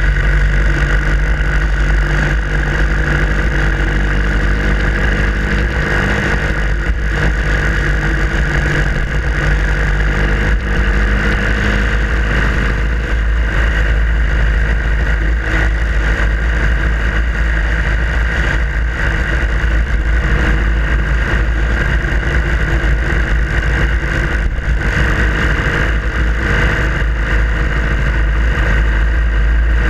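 Harley-Davidson Sportster Iron 883's air-cooled V-twin engine running steadily as the bike is ridden, with a deep low rumble; the engine note shifts about twelve seconds in.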